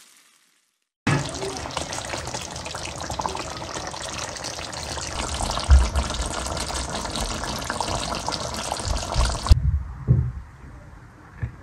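Chicken karahi simmering in a pan of tomato sauce, bubbling steadily with small crackles. It begins after about a second of silence and cuts off suddenly near the end, leaving a few dull low thumps.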